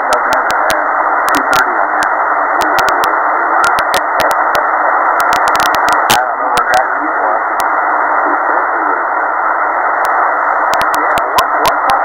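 Eton Grundig Executive Satellit shortwave receiver playing through its speaker, tuned to 3810 kHz lower sideband in the 80-metre amateur band: a narrow, steady hiss of band noise with a faint, unintelligible voice under it, broken by frequent sharp crackles of static.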